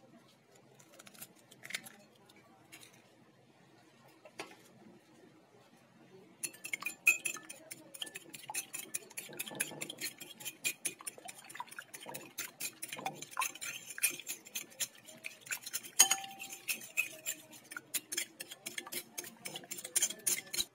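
A fork beating a raw egg in a bowl, its tines clinking rapidly against the bowl's side. A few scattered clicks come first, then about six seconds in the quick, steady clinking starts and keeps up.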